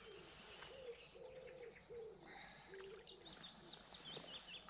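Songbirds singing and chirping, many short twitters and calls, with a low steady tone coming and going in short stretches beneath them.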